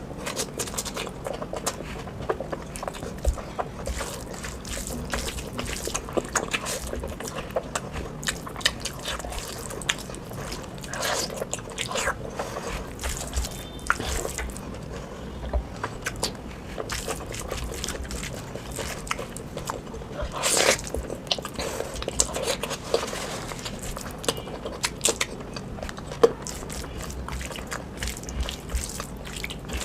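Close-miked eating sounds of oily mutton curry: wet chewing, lip-smacking and slurping, an irregular run of sharp smacks and clicks with one longer, louder wet sound about two-thirds of the way through.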